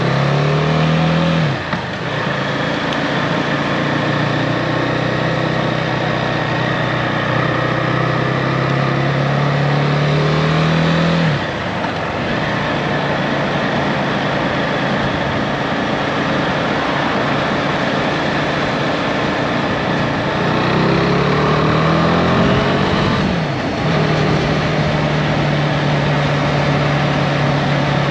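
Husqvarna Svartpilen 401's single-cylinder engine heard from the saddle, pulling through the gears. The engine note rises and drops sharply at three upshifts, about one and a half seconds in, at about eleven seconds and at about twenty-three seconds, and holds steady while cruising in between, over a constant rush of wind and road noise.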